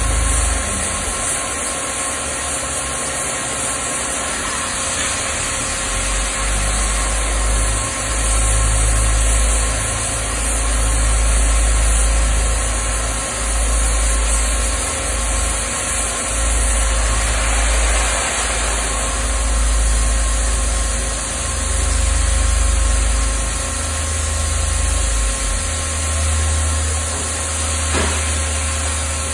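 Peddinghaus ABCM 1250 beam coping machine running while its cutting torch burns through a steel beam: a steady mechanical hum and hiss, with a low drone that comes and goes every second or two.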